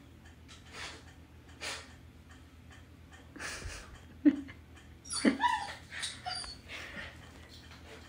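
Husky puppy sniffing in a few quiet puffs, then from about halfway giving a handful of short whines and yips, the loudest with a sliding pitch. The owner reads the calls as frustration at not being able to hit the door stopper.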